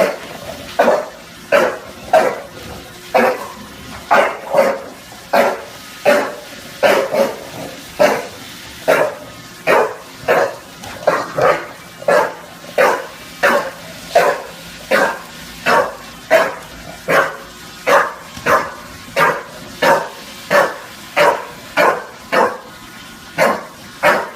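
Bulldog barking over and over at a steady pace, about three barks every two seconds without a break.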